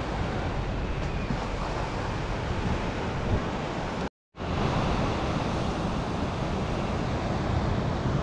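Steady wash of surf breaking on the beach, with wind on the microphone; the sound cuts out completely for a moment about four seconds in.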